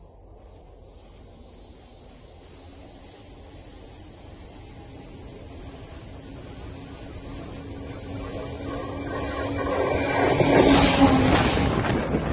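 Euro City express train hauled by a PKP Intercity EP09 electric locomotive approaching at speed and passing directly overhead, heard from between the rails. A hiss from the rails and a steady low hum grow steadily louder, then turn to loud wheel noise about ten seconds in as the locomotive rolls over.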